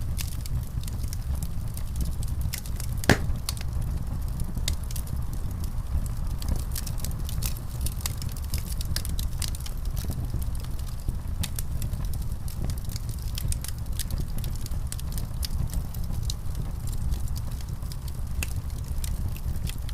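Wood fire crackling in a fireplace: a steady low rumble under frequent small pops, with one louder pop about three seconds in.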